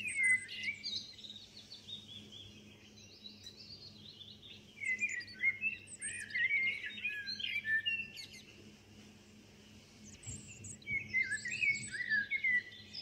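Wild birds chirping and warbling in quick, high runs of notes: a short burst at the start, a longer run from about five to eight seconds in, and another near the end.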